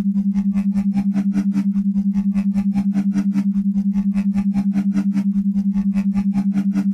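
Brainwave-entrainment therapy audio: a steady low tone near 200 Hz pulsing evenly on and off several times a second, like an isochronic tone, with a fainter higher layer pulsing in step.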